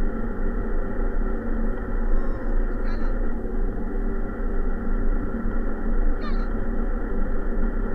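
Steady wind and rolling noise on the microphone of a camera moving along a paved road behind a running dog. Two short high chirps break through, about three seconds apart.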